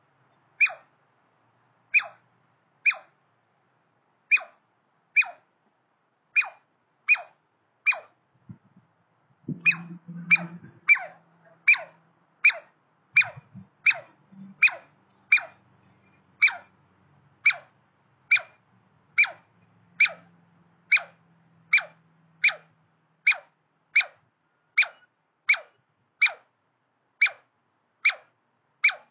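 Douglas squirrel calling over and over, each call a quick note that falls sharply in pitch, about three calls every two seconds with a brief pause near eight seconds in. The repeated calling is the squirrel's territorial call.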